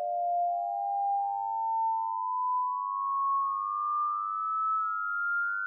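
Pure sine tones played one after another, climbing the harmonic series of a string: each new partial comes in about every three-quarters of a second and rings over the fading one before it, the steps growing closer in pitch as they rise. About eight partials sound in turn, the high harmonics toward the sixteenth.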